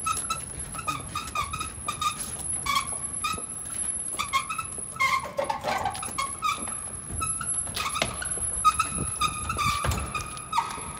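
Wheels of a folding casket cart squeaking again and again as it is rolled along, short high squeaks in an uneven rhythm.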